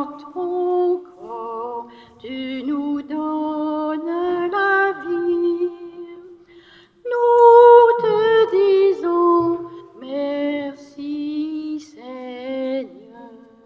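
A woman singing a communion hymn unaccompanied, in phrases of held notes with a slight vibrato, with a short pause about halfway through.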